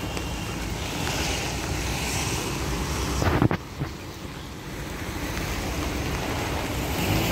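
Steady rushing of rain on a wet street, mixed with wind noise on the microphone. About three seconds in there is a brief knock, after which it is quieter for about a second.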